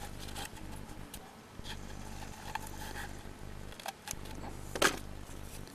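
Quiet handling of a filled PVA bag and tube: small scattered clicks and rustles, then a single sharper snip of scissors cutting the PVA bag near the end.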